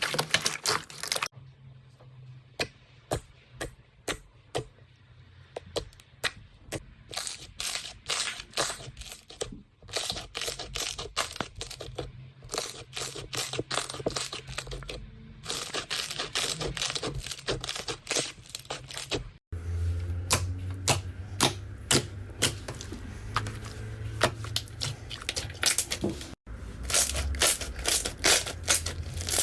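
Slime being squeezed, pressed and poked by hand: a dense run of sharp clicks, pops and crackles, in several short clips that cut one into the next.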